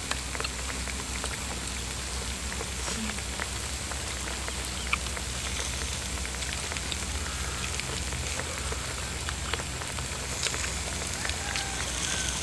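Pork sizzling on a mu kratha grill-pan over a charcoal stove: a steady crackling hiss with scattered small clicks.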